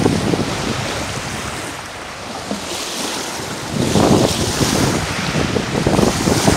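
Small waves washing and breaking onto a pebble beach, with wind buffeting the microphone as a low rumble; the surf swells louder about four seconds in.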